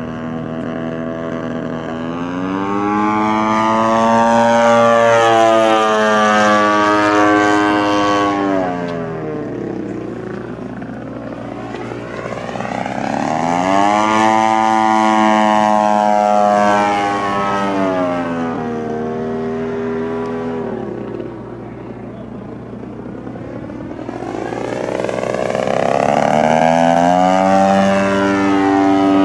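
DLE 55 single-cylinder two-stroke gasoline engine of a large radio-controlled Tiger Moth biplane model running in flight. It swells and fades three times as the plane makes its passes, and its note rises and falls in pitch with each one.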